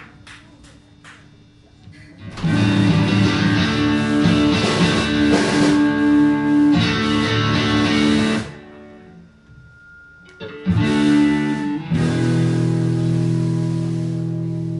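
Guitars playing loud strummed chords for several seconds, stopping, then striking chords again, the last one left ringing and slowly fading.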